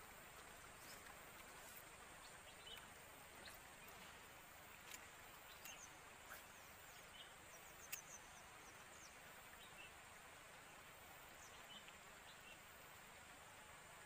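Near silence: faint outdoor ambience with scattered small bird chirps and a few soft clicks.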